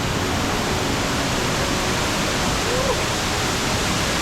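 Steady rushing of a waterfall, a dense unbroken roar of falling water.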